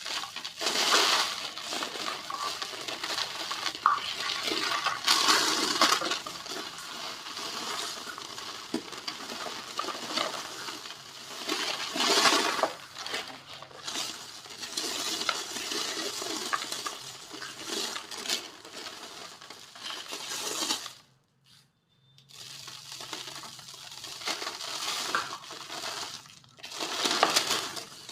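Dry, crisp white-cement shapes being crushed and crumbled by hand, with a steady crackling and gritty crunching and several louder crunches. There is a short pause about three quarters of the way through.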